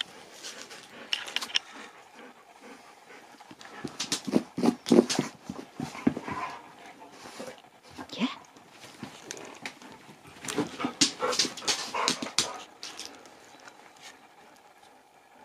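Siberian husky panting in two quick bouts, with a short rising whine about eight seconds in.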